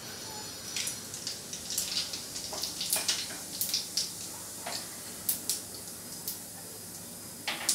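Cumin and mustard seeds frying in hot oil in a kadhai: a steady sizzle with irregular sharp pops and crackles as the mustard seeds splutter. The spluttering is the sign that the tempering (phodni) is ready for the next ingredients.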